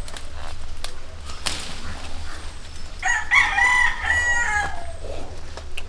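A rooster crows once, about three seconds in: a single stepped call lasting about a second and a half.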